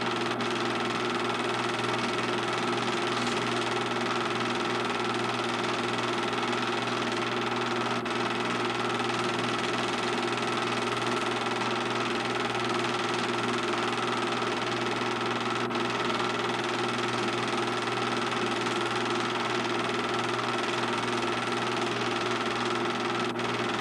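A film projector running: a steady mechanical hum over an even hiss.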